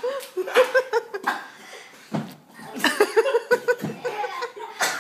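A young child laughing in quick, repeated ha-ha bursts, once near the start and again about three seconds in, with lower laughter or voice sounds in between.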